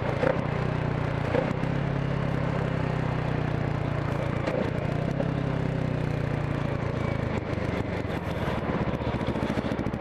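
Motorcycle engine running at a steady speed while riding. About seven and a half seconds in, the steady note drops away into a rapid pulsing beat.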